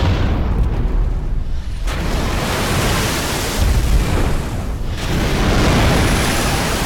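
Depth charges exploding: a deep underwater blast rumbling on, then the rushing noise of water columns thrown up from the sea, swelling again about two, four and five seconds in.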